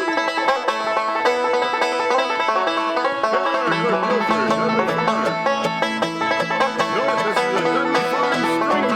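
Bluegrass music with banjo picking over other string instruments: an instrumental passage, with no singing yet.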